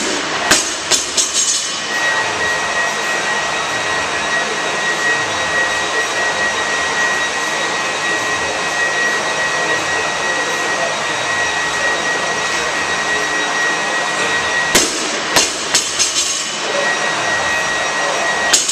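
Steady whir of a large fan. On top of it, a loaded barbell with iron plates clanks and rattles on a rubber gym floor: a few knocks just after the start, a cluster of clanks toward the end, and one sharp clank at the very end.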